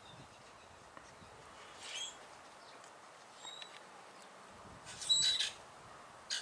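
Small songbird calls outdoors: short, high chirps every second or two over faint background, with the loudest group of chirps about five seconds in.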